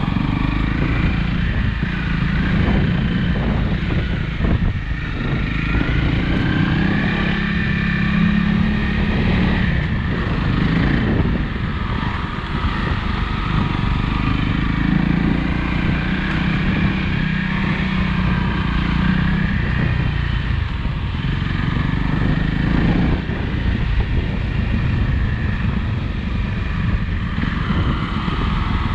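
Small single-cylinder motorcycle engine running while being ridden off-road, its note rising and falling repeatedly with the throttle over a steady low rumble.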